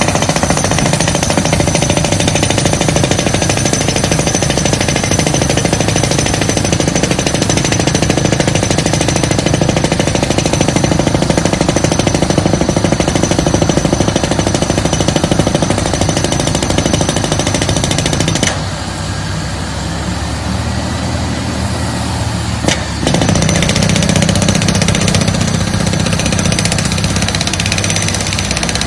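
Drill rig with a hydraulic rotary head drilling, giving a loud, rapid, continuous hammering typical of a down-the-hole air hammer. About two-thirds of the way through, the hammering drops away for a few seconds, leaving a lower hum. A sharp click follows, and then the hammering resumes.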